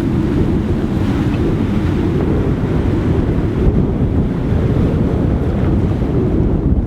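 Wind buffeting the microphone on a sailing yacht at sea, a steady low rumbling rush with the wash of waves beneath it.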